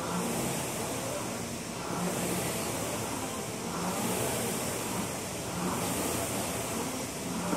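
Rowing machine in use: its flywheel whooshes in surges, swelling with each pull at about one stroke every two seconds.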